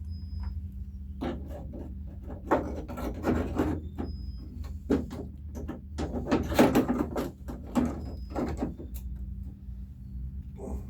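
Irregular scraping, rubbing and clunking of a replacement door latch being handled and fitted into a Jeep Wrangler door, busiest around the middle.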